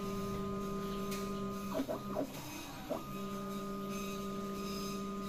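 An Avian Brands automatic paint tinting machine running with a steady pitched hum as it dispenses colorant into a paint can. It stops just before two seconds in, gives a brief shorter sound, and starts again about a second later.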